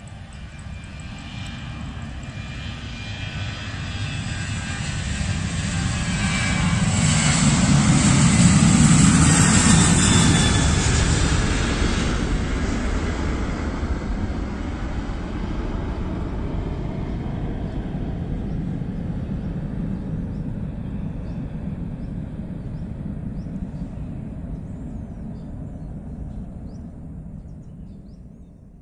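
Jet airliner taking off, its engines at takeoff power. The engine noise grows to a peak about eight to ten seconds in as the plane passes, then fades slowly into a long rumble as it climbs away.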